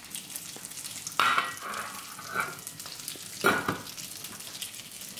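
Fish sticks frying in a pan, a steady sizzle with fine crackling. Cookware clanks louder twice, about a second in and again past the middle.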